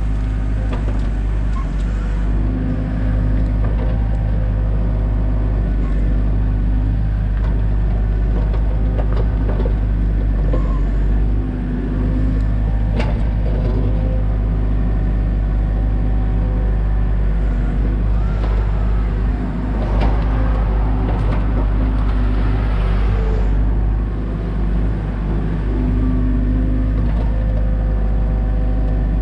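Komatsu excavator's diesel engine running steadily, with scattered short clicks and knocks.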